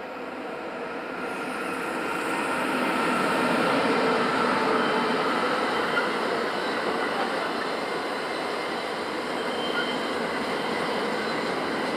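Electric train passing on the line: a steady rolling noise of wheels on rails that grows louder over the first four seconds and then holds, with a faint high ringing tone from the wheels.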